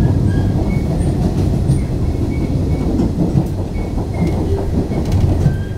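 Running noise inside a Nishitetsu 5000 series electric train: a steady rumble of the wheels on the rails, with a few brief, faint squeals.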